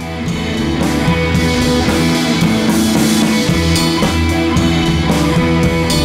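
Background rock music with electric guitar and drum kit, played at a steady level.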